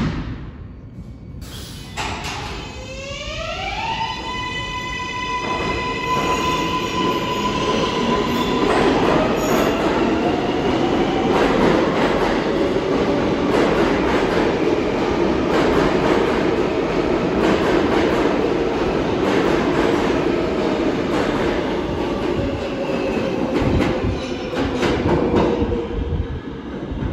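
An R143 subway train pulling out of the station. About two seconds in, its traction motors whine up in a stack of rising tones that level off into a steady whine. Then the cars run past with loud wheel-on-rail noise and regular clacks over the rail joints, which ease off near the end.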